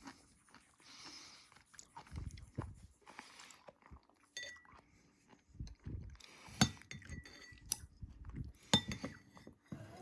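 A person chewing and crunching food close to the microphone, with a few sharp clinks of a utensil or dish, the loudest about six and a half and nine seconds in.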